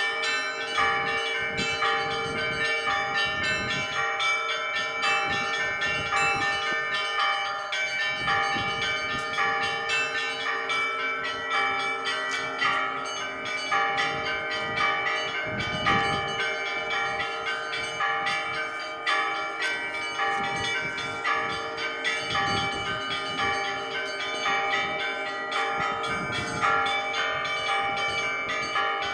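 Church bells ringing: several bells of different pitches struck in quick, continuous succession, their tones overlapping and ringing on.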